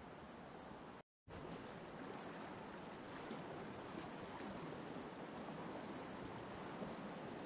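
Steady rushing of river water over shallow rocky rapids, heard from a kayak on the water. The sound cuts out for a moment about a second in, then resumes a little louder.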